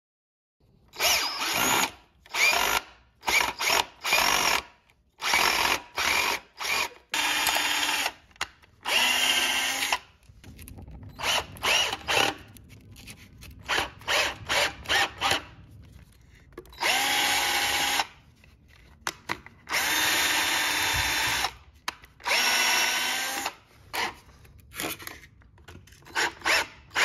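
Cordless drill/driver driving screws into a wooden frame: the motor whirs in many short trigger bursts, its pitch rising as each burst spins up, with a few longer runs of a second or more in the second half.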